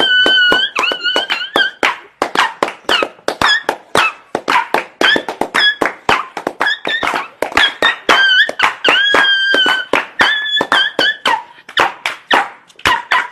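A sound effect made of rapid clicks and taps over high, squeaky pitched tones that bend up and down, several times a second.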